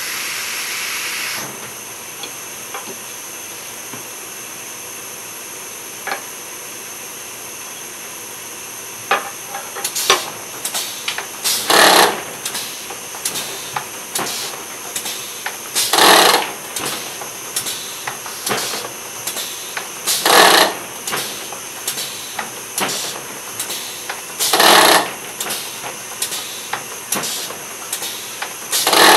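Climbing robot running on a wall: a steady air hiss with a faint high whine throughout. From about ten seconds in come quick clicks and whirs of its joints and a loud burst of air hiss about every four seconds as it steps upward.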